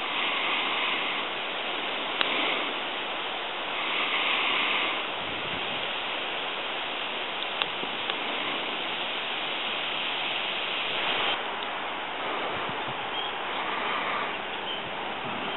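Wind outdoors, rustling the leaves and buffeting the camera microphone: a steady hiss that swells and eases every few seconds, with a couple of faint clicks.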